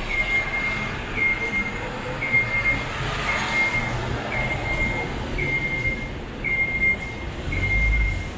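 City street traffic noise with a short, high electronic beep repeating about once a second. A vehicle rumbles past near the end.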